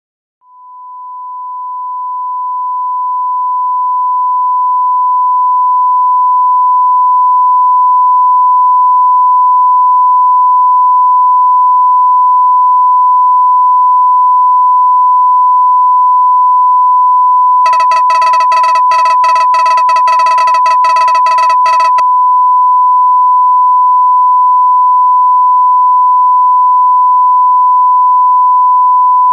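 A steady, high, pure electronic beep tone that swells up over the first few seconds and then holds unbroken. From about 18 to 22 seconds a lower, buzzier electronic tone pulsing rapidly sounds on top of it.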